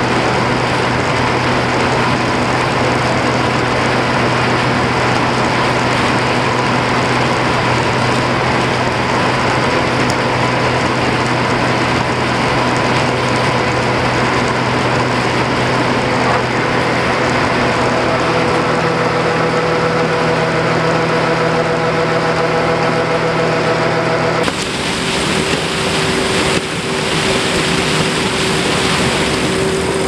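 Combine harvester running as it harvests corn: a loud, steady machine drone with several constant hums, picked up by a camera mounted on the machine. About 24 seconds in, the sound changes abruptly to a different mix of the same machinery.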